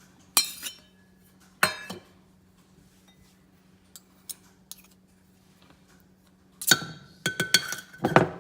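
A metal spoon clinking against a ceramic mug while ingredients go in: two knocks near the start, then a quick run of ringing clinks about seven seconds in. A faint steady low hum lies underneath.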